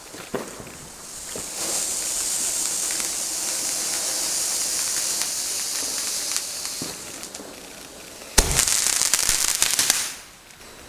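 Fireworks: a firework fizzing with a steady high hiss for about six seconds, then a sharp bang a little after eight seconds in, followed by rapid crackling that stops abruptly about two seconds later.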